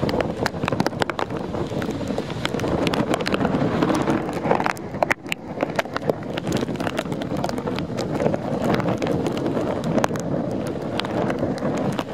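Strong, gusty wind blowing across the microphone: a dense rushing with many small crackles, easing briefly about five seconds in.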